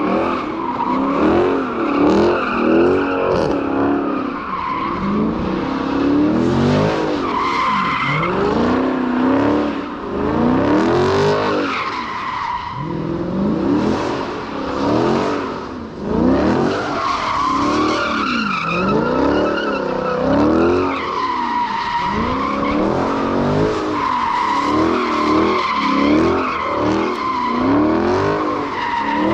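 Dodge Charger Scat Pack's 392 HEMI V8 revving up and falling back over and over while its rear tyres squeal without a break, as the car spins donuts.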